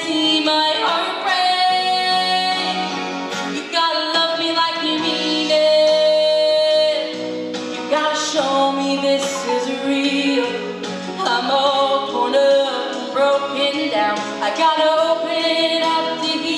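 A woman singing a country song live with long held notes over her own acoustic guitar, heard through a theater's sound system.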